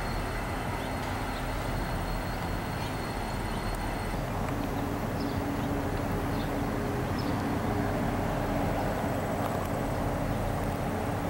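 Diesel locomotive engines running, a steady low drone, with a low steady hum joining about four seconds in.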